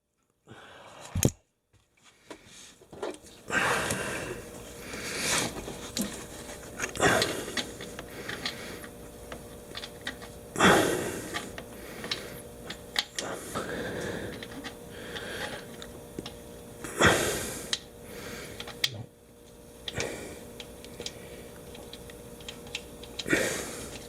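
Hands working the ATV's oil drain cap back into place: a series of short, irregular scraping and rustling bursts a few seconds apart, over a faint steady hum.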